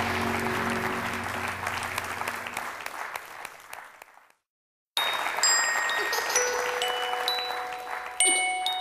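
Background music: one track fades out over the first four seconds, and after about half a second of silence a new piece starts with a bell-like mallet melody of single ringing notes.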